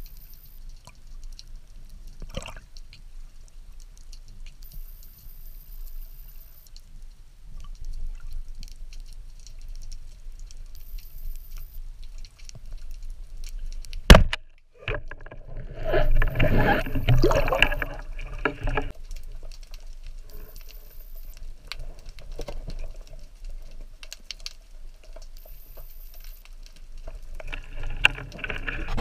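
Underwater recording through a speargun-mounted camera: low water hiss and faint clicks, then about halfway one sharp, loud crack as the Sea Hawk speargun fires at a fish. A couple of seconds later comes about three seconds of loud churning water noise.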